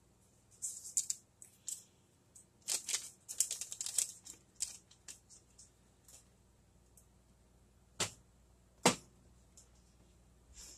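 Paper wrapper of a stick of butter crinkling and tearing in quick rustles as it is peeled off by hand. This is followed near the end by two sharp knocks about a second apart.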